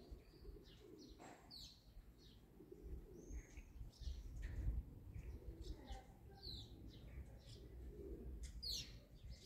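Faint outdoor birdsong: small birds giving short, scattered chirps, with low cooing and a low background rumble underneath.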